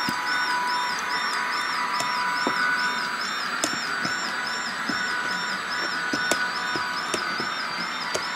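Model trains running on a layout: a steady whine from the locomotive motors and gears, with a high tone that warbles about twice a second, and scattered light clicks from the wheels on the track.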